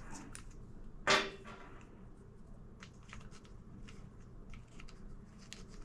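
Small plastic parts being handled: the washing machine's agitator dogs being taken out of and fitted into the agitator cam. One sharp click about a second in, then faint scattered ticks and clicks.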